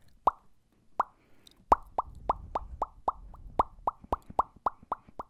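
Mouth pops close to the microphone, ASMR ear-eating mouth sounds. A couple of spaced pops come first, then a steady run of about four a second from a little under two seconds in.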